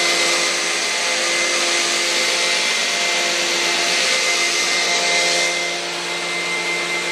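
Electric motors and gearing of a large-scale model diesel locomotive running at maximum speed on pulse-width-modulated 24 V power: a steady whirring hiss with a fixed high whine. It drops a little in level about two thirds of the way through.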